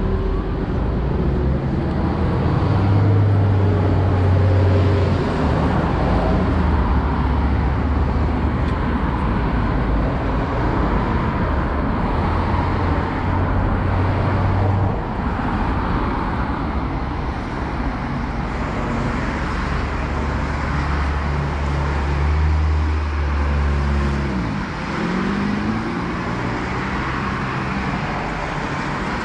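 Steady road traffic on a wet boulevard: tyres hissing on the rain-wet road and car engines humming as vehicles pass, swelling and fading. Near the end one passing vehicle's engine note bends in pitch as it goes by.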